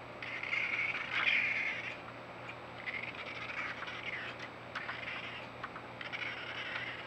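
Raccoons calling in three rough bouts of about a second each, near the start, about three seconds in and about six seconds in; most likely courtship calls.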